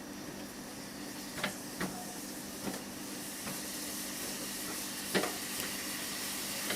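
A pan of sliced ginger and Indian gooseberry simmering in brown-sugar syrup on low heat: a steady sizzling hiss that grows louder, with a few sharp clicks, the loudest about five seconds in.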